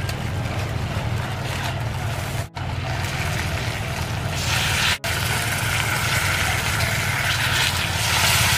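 Whole chicken roasting on banana leaves in a wok over a fire: a steady sizzling hiss over a constant low rumble, the hiss swelling about halfway through and again near the end.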